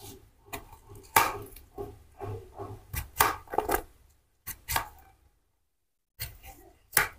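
Knife chopping a watermelon: a run of irregular sharp knocks, with two short pauses in the second half.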